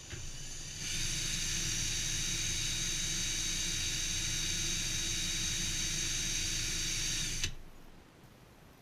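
An electric power tool's motor spins up, runs steadily at high speed with a high whine for about six seconds, then stops abruptly.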